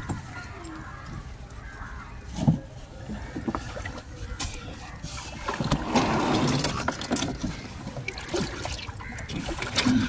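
Work sounds aboard a small wooden fishing boat as a gill net is handled: scattered knocks and clicks with some water sounds, and a louder rush of noise about six seconds in.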